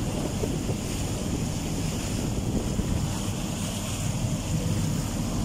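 Steady wind buffeting the microphone and water rushing past the hull of a motorboat under way, with a low rumble underneath.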